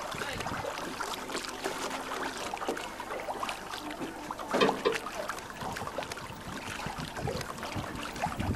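Water lapping and trickling against a moored yacht's hull, a steady crackly wash, with one short louder noise about halfway through.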